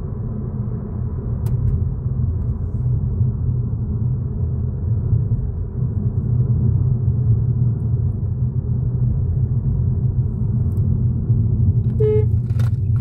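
Steady low road and engine rumble inside the cabin of a SEAT Arona cruising at about 55 km/h in sixth gear of its automatic gearbox. Near the end there is a short tone, then a click.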